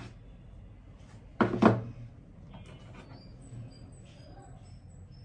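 Two short, loud cries from a young child about a second and a half in, one right after the other.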